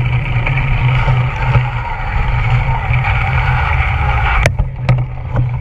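Wind and rolling rumble on a camera mounted on a cyclocross bike ridden over a wet street, with a steady haze of crowd noise from the spectators at the barriers. A few sharp knocks come near the end as the bike comes to a stop.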